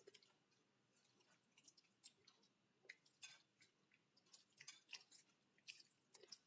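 Faint, irregular wet squelches of hands squeezing water out of soaked, ground egg-carton pulp.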